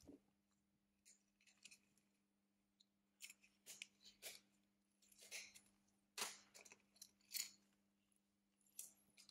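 Small hand tools working on a Samsung Galaxy S9 smartphone during a battery replacement: a dozen or so short, faint scraping and clicking strokes, over a steady low electrical hum.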